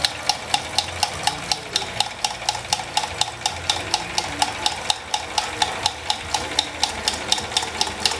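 Wilesco toy steam engine running and driving an Empire model water pump through a string belt: a steady, even run of sharp clicks, about five a second, over a steady hiss.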